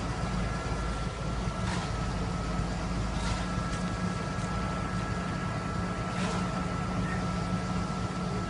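A truck engine running steadily under load to power a knuckle boom crane's hydraulics, with a thin steady whine over the low rumble. Three short sharp knocks are heard, about two, three and six seconds in.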